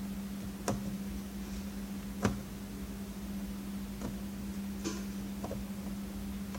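A handful of short, sharp clicks and taps, about five spread over several seconds, from a screwdriver and small screws as the last screws come out of a monitor's plastic case, over a steady low hum.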